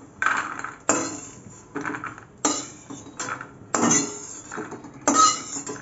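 Metal spatula scraping dry-roasted peanuts across a metal kadai and tipping them into a small steel bowl. Repeated scrapes and clinks of metal on metal with a short ring, about one a second.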